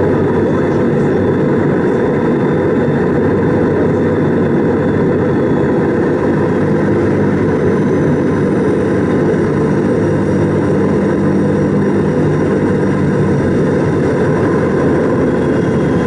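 Antonov An-22's Kuznetsov NK-12 turboprops driving contra-rotating propellers, a loud steady drone at taxi power heard from inside the cabin, with a faint high turbine whine above it.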